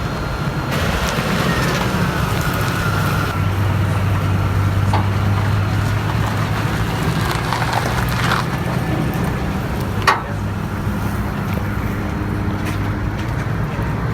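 A motor vehicle's engine running steadily with a low hum, and one sharp click about ten seconds in.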